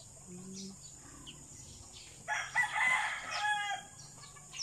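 A rooster crowing once, starting about two seconds in and lasting about a second and a half, harsh at first and ending in a pitched, falling tail. Faint short chirps of small birds run underneath.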